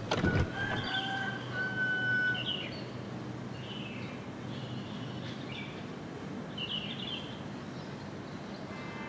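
Outdoor ambience: a steady background hiss with short bird chirps and calls scattered through it, and a few knocks at the very start.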